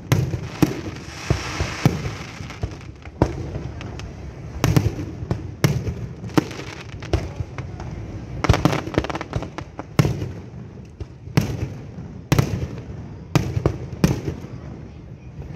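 Fireworks going off: a steady run of sharp bangs and pops at irregular intervals, roughly one or two a second, with a brief hiss about a second in.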